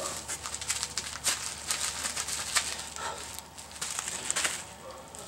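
Irregular rustling and crackling of packing material, with small knocks, as parts are handled and lifted out of a box.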